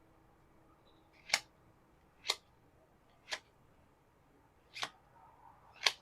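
Five short, sharp snaps of trading cards being flicked through by hand, about a second apart, the last the loudest.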